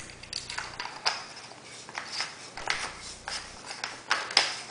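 Irregular light clicks and knocks of D-cell batteries and the spring-loaded metal tail cap being handled against an aluminium Mag-Lite flashlight barrel while the flashlight is loaded, with one sharper knock near the end.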